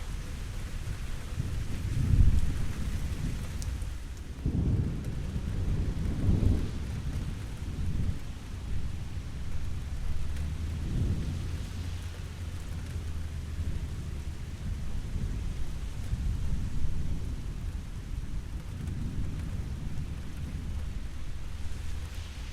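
Steady rain with rolling thunder rumbling low several times, loudest about two seconds in and again in a run of rumbles a few seconds later.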